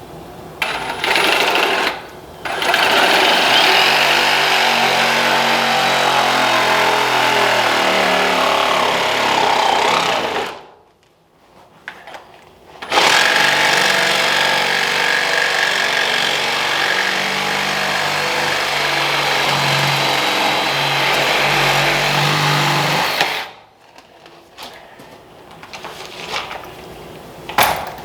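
Power saw cutting 4-inch PVC drain pipe: a short burst, then two long cuts of about eight and ten seconds with a brief stop between them.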